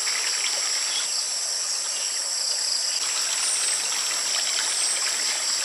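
Steady outdoor insect chorus: several high-pitched shrill drones held without a break, over an even background hiss, with a few short falling chirps in the second half.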